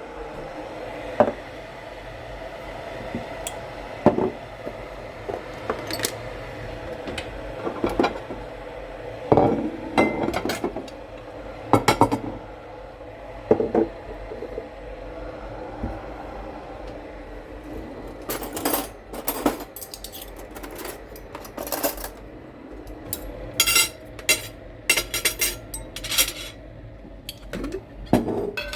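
Kitchen utensils and dishes clinking and knocking against each other, a sharp clink every second or two, with a quicker run of clinks in the second half. A steady hum runs underneath and fades about halfway through.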